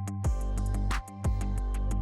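Background music with a steady beat, a sustained bass line and plucked guitar.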